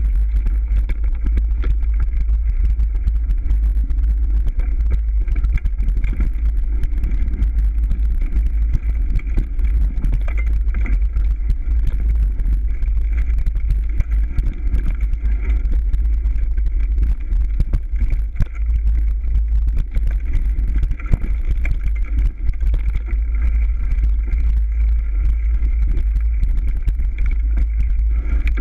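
A mountain bike riding a dirt forest trail: wind rushes over the action camera's microphone as a steady rumble, while tyres and the bike's parts rattle with many small knocks over roots and leaves.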